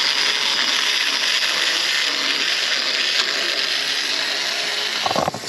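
Small battery-powered electric motor and cog gearing of a kit-built G scale model locomotive running steadily along the track, a noisy mechanical whir that falls away near the end.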